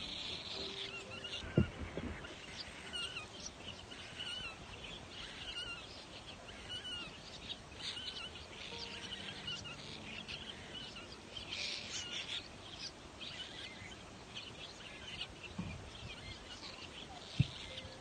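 Nestling birds calling: many short, high, wavering chirps repeated over and over at a low level. Two soft knocks stand out, one about a second and a half in and a sharper one near the end.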